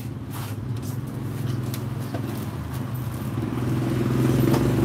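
Motor scooter engine running on the street, growing louder toward the end as it comes close, with a few light knocks.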